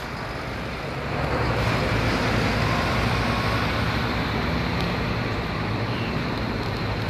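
Steady road traffic noise, including a double-decker bus: a continuous low engine rumble and tyre noise, growing a little louder about a second in.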